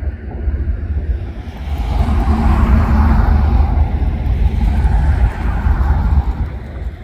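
GE ET44AC and ES44AC diesel locomotives of a light-engine consist rumbling as they roll slowly past. The rumble swells about two seconds in and eases off near the end.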